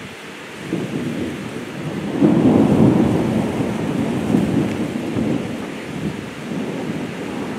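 Thunder rumbling, building about a second in and loudest around two to three seconds in, then rolling on. Rain falls steadily underneath.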